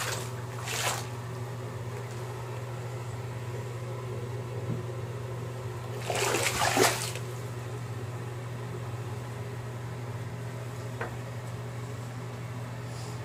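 Bathtub water sloshing and splashing twice: briefly near the start, then louder about six seconds in. A steady low hum runs underneath.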